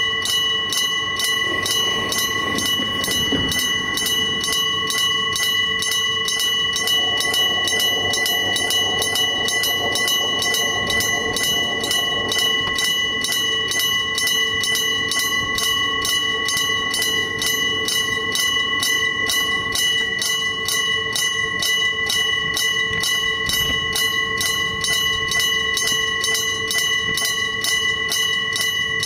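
Electromechanical level-crossing bell (denshō type) ringing: a clapper striking the bell in a fast, even, unbroken rhythm, each strike ringing with several clear tones.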